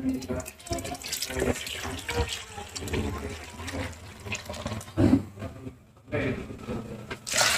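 Thin second-extract coconut milk poured from a plastic jug into an empty aluminium pot, a splashing gush that tapers off about five seconds in. A short, sharp sound near the end.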